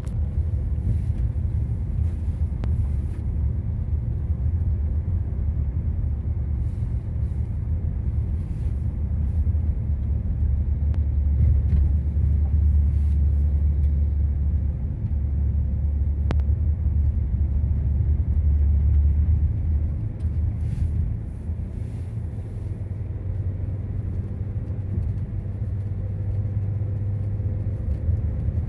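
Low, steady rumble of a car being driven uphill, heard from inside the cabin. It grows louder through the middle and eases off about two-thirds of the way through.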